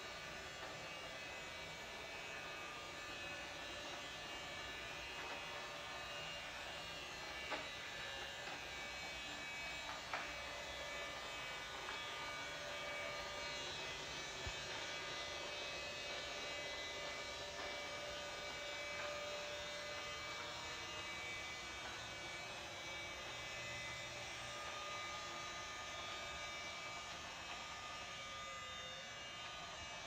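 Small cheap robot vacuum cleaner running on its own on a hard tile floor: the steady buzzing hum of its small motors. A few small knocks come between about a quarter and halfway through.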